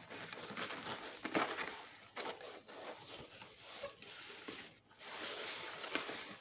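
Hands tearing open and unrolling a corrugated cardboard and brown-paper parcel: irregular crinkling and rustling with several short sharp rips.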